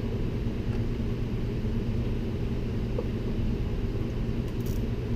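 Steady low hum of background machinery running, with a few light clicks near the end as a wiring harness is handled.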